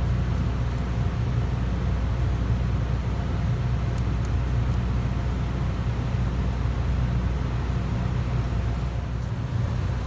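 A steady low hum, with a few faint ticks about four seconds in and again near the end.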